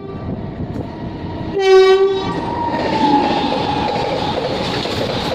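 Electric locomotive's horn gives one short blast about a second and a half in. A container freight train then keeps passing at speed, its wagons' wheels running steadily on the rails.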